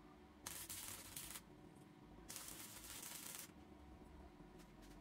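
Stick welder tack welding on a steel pipe: two bursts of arc crackle, each about a second long, the second a little longer.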